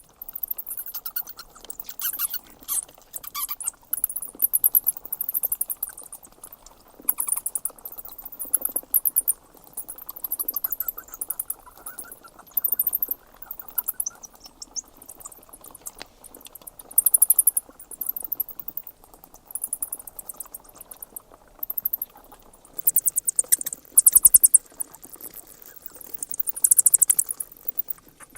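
Bats squeaking and chittering: short bursts of rapid, very high-pitched chirps, repeating every second or two over a faint hiss.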